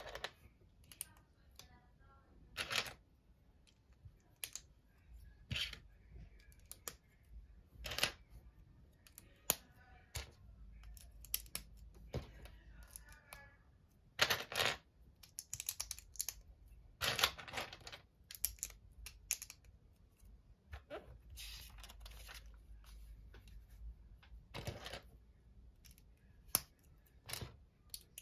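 Loose plastic Lego pieces clicking and rattling as they are rummaged through and picked out of a pile, with irregular sharp clicks, some louder than others.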